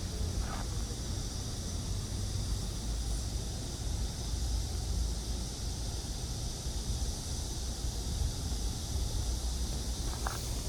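Outdoor walking ambience: a steady low rumble of background noise with a faint steady high hiss over it, and a footstep shortly after the start and another near the end.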